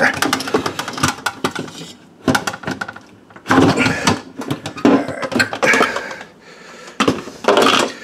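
Plastic dishwasher parts clicking, knocking and clattering against the stainless-steel tub as the filter assembly is handled and pulled out, with a dense run of small clicks early on and a few louder clatters later.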